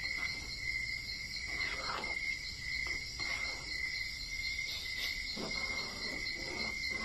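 Crickets chirping steadily in the background, with a few soft scrapes of a metal spoon stirring thick tomato sauce in a pan.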